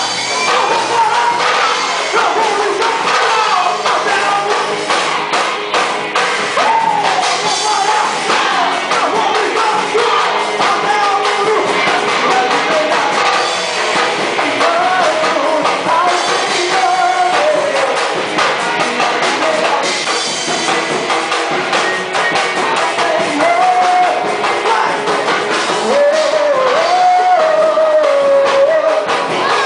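Band playing an upbeat praise song, with singing over drum kit and percussion.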